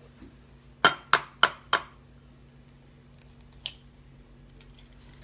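An egg tapped four times in quick succession against the hard rim of a mixing bowl to crack its shell, sharp clinks, followed by one lighter tap a couple of seconds later.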